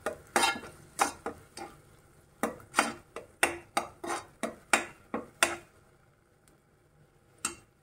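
A slotted metal spoon scraping and knocking in a granite-coated pot as masala paste is stirred and fried. The strokes come quick and irregular for about five seconds, then stop, with one last stroke near the end.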